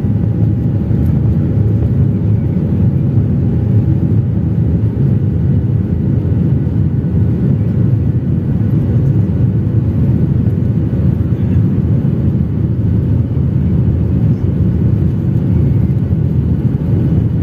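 Steady low rumble of an airliner heard from inside the passenger cabin as it taxis, the jet engines and the airframe running at an even level with a faint steady whine above the rumble.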